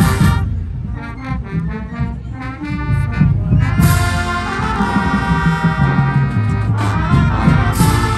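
Marching band playing, brass over bass drums: short, detached brass chords, then the full band comes in louder about four seconds in, with another loud hit near the end.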